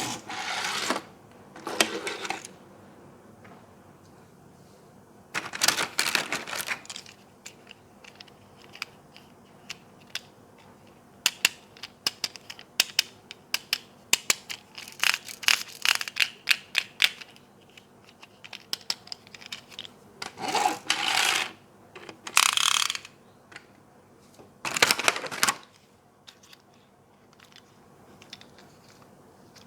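Hands unboxing and handling toys and their packaging: a run of small clicks and taps, thickest about halfway through, with several short rustling, scraping bursts about a second long.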